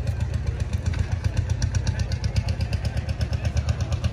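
An engine idling steadily with a fast, even pulse.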